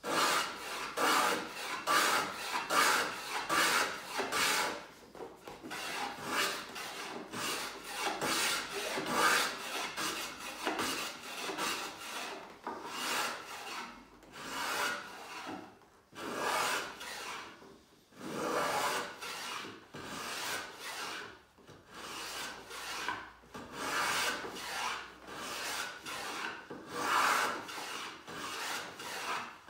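An antique wooden No. 4 skew hollow moulding plane shaving wood as it cuts a small round-over along the long-grain edge of a drawer front. It works in a steady run of short repeated strokes with brief pauses between them.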